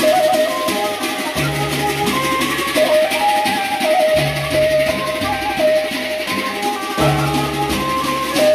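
Sasak gendang beleq ensemble playing: large barrel drums and clashing hand cymbals make a dense metallic shimmer under a bright melodic line, with low notes sounding again every few seconds.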